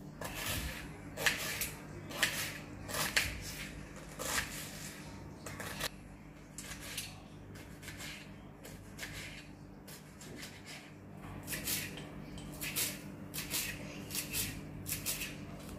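A kitchen knife chopping onion, tomato and coriander on a plastic cutting board: irregular taps of the blade on the board, with a quicker run of chops over the last few seconds. A low steady hum runs underneath.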